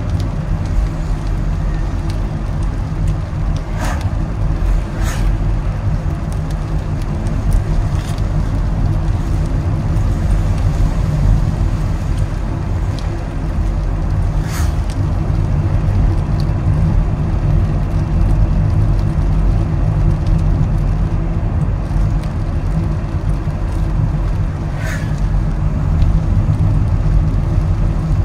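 A car being driven: a steady low rumble of engine and tyre noise on the road. A few sharp ticks come through now and then.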